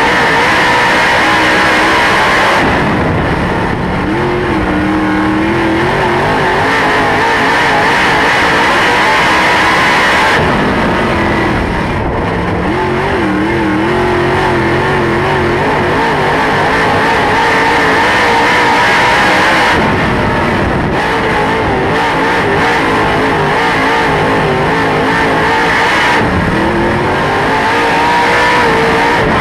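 Dirt late model race car's V8 engine at racing speed, heard from inside the cockpit. The engine note wavers and drops away about four times, then climbs back, as the throttle is lifted and reapplied.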